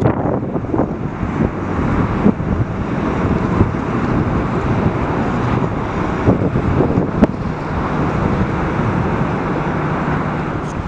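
Wind buffeting the microphone: a steady rumbling noise with a few short, sharp gusts.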